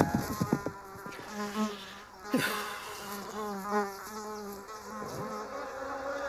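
Cartoon sound effect of a housefly buzzing, its drone wavering up and down in pitch, with quick swooping passes about two and a half seconds in and again around five seconds.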